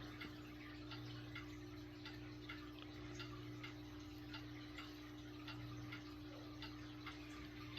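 Vintage Lakewood Country Aire three-speed box fan with a Westinghouse motor running: a steady motor hum with a faint, regular tick about two or three times a second. The owner says the motor needs thrust washers, which points to shaft end play.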